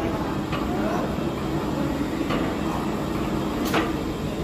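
Metal shaper running as it cuts module 1.5 rack teeth into a steel drill-press spindle sleeve: a steady machine hum with a sharp cutting stroke about every second and a half.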